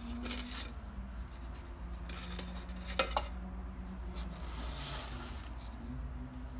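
Hands handling a cardboard shipping box and its styrofoam insulation: rustling and scraping of foam and cardboard, with a sharp click about three seconds in, over a faint steady low hum.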